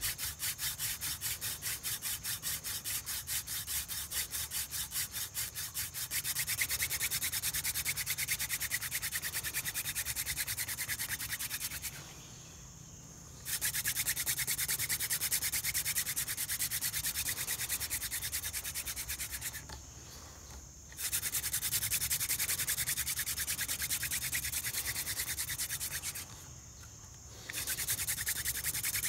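Hand drill friction fire: a dried mullein spindle spun back and forth between the palms, its tip grinding into a soft, degraded tulip poplar fireboard, drilling the burn-in and the ember in one go. A fast, even rubbing that grows louder about six seconds in and stops briefly three times.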